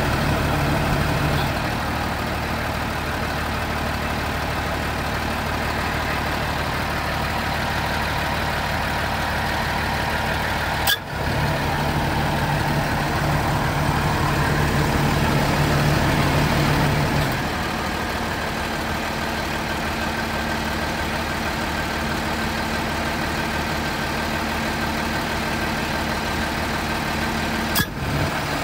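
Rear-mounted diesel engine of a Tiffin motorhome idling steadily, heard up close at the open engine compartment, with a low hum that swells for several seconds at a time. A sharp click comes about eleven seconds in and again near the end.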